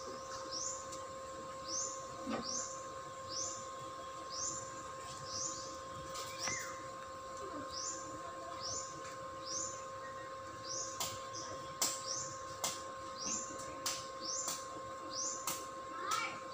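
A bird repeating a short, high chirp about once a second, over a steady high-pitched hum. A few sharp clicks come in the second half.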